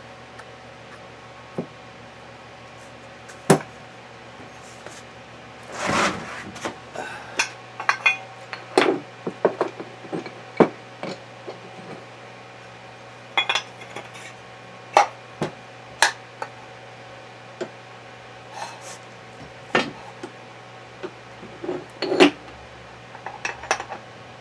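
Metal gearbox parts and tools clinking and knocking against each other as they are handled during reassembly: irregular sharp clacks over a steady low hum.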